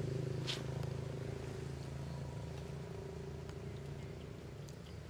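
Low, steady hum of a motor vehicle's engine that slowly fades away, as if it is driving off, with a few faint clicks over it.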